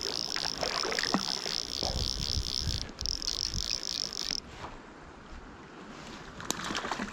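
Insects chirring in a high, evenly pulsing chorus that stops abruptly about four seconds in, leaving quieter background noise with a few low thumps and clicks.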